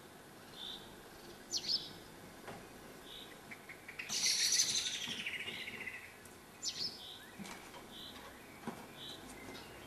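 Small songbirds. One repeats a short high call about once a second. Another sings a loud trilled phrase that falls in pitch about four seconds in, with a few sharp chirps around it.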